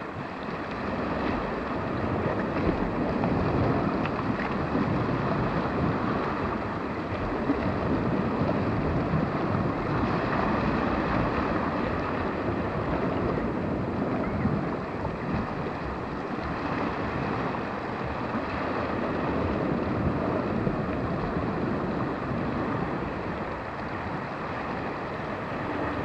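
Steady rushing noise of wind and ocean surf, with no distinct events standing out.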